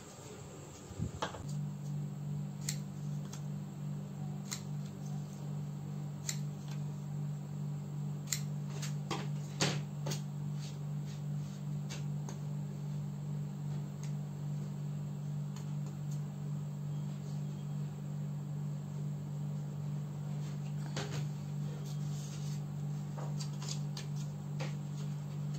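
Scissors snipping paper and paper being handled, heard as scattered sharp clicks, over a steady low hum that starts about a second in.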